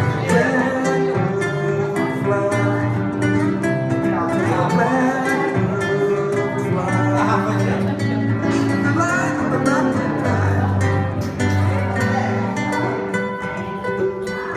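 Live acoustic guitar playing with a voice singing over it and hand drums, bongo and congas, keeping time.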